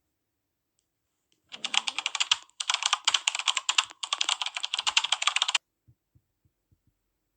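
Rapid, dense clicking in three runs with short breaks, starting about a second and a half in and cutting off suddenly a little after five seconds, then a few faint taps.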